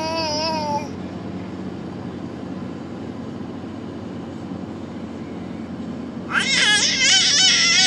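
A cat yowling in long, wavering, drawn-out calls. A short one comes right at the start, then a louder, longer one begins a little over six seconds in.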